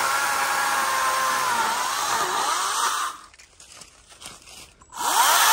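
Kobalt cordless electric chainsaw running and cutting, its motor whine wavering and dipping in pitch under load. It stops about three seconds in, then spins back up with a rising whine near the end.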